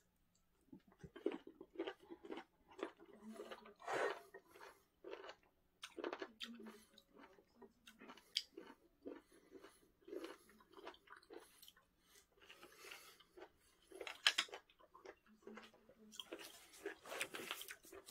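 A person chewing and biting whole, unsliced abalone, with irregular close-up mouth clicks and smacks, coming thickest near the end.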